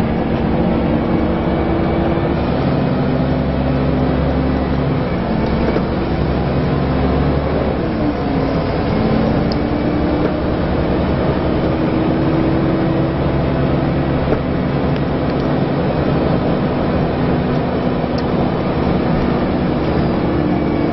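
Inside a Scania L94UA Wright Solar Fusion articulated bus under way: its 9-litre diesel engine and ZF automatic gearbox running steadily over road noise, the engine note stepping to a new pitch a few times.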